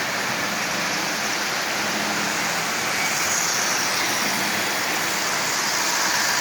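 Several model electric trains running at once on a layout: a steady whir of motors and wheels rolling on the track rails.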